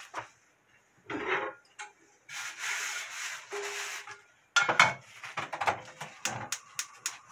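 Rough scraping and rubbing as a frying pan is handled, then a loud knock as the pan is set down on a gas stove's metal grate, followed by a run of sharp clicks.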